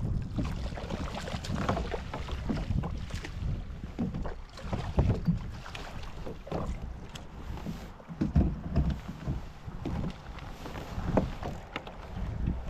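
Wind on the microphone and water sloshing against a fishing kayak. Irregular splashes and knocks of gear come through as a hooked striped bass is brought alongside and scooped into a landing net.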